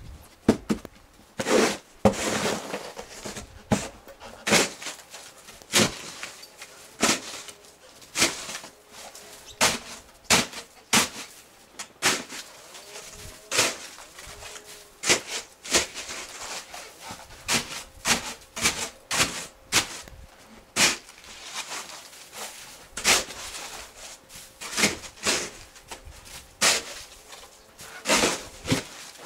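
Hand snow shovel with an orange plastic blade and an aluminium edge scraping and scooping packed snow. There are short scrapes and knocks roughly once a second.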